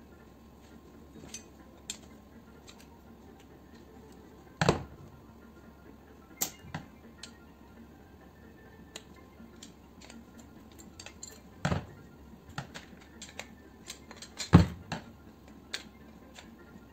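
Metal clinks and taps of a screwdriver and small parts as a pressure washer pump head is taken apart, with three louder sharp metallic knocks about five, twelve and fifteen seconds in.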